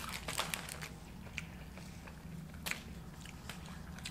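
Close-up mouth sounds of eating crispy curly fries: chewing, with a cluster of crisp crunches in the first second and a couple more later.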